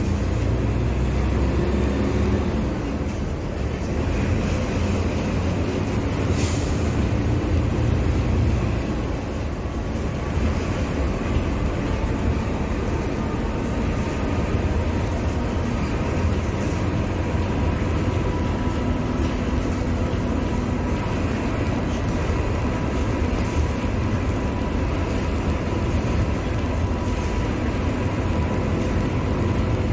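Mercedes-Benz OF-1721 Bluetec 5 bus's four-cylinder diesel engine running with a steady low rumble. About ten seconds in, a thin whine starts and slowly rises in pitch.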